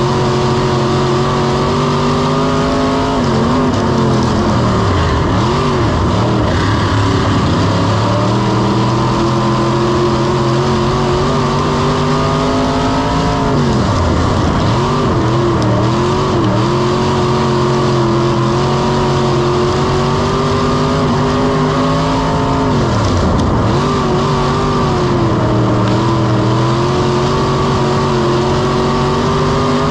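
Onboard sound of a V8 dirt-track race car engine at racing speed, held steady down the straights and lifting off three times, about every ten seconds, as the pitch drops and wavers through each corner before climbing back under throttle.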